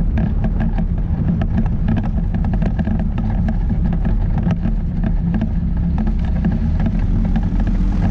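Quicksilver Sport 2S ultralight's engine and propeller running steadily, with frequent short crackles over the drone.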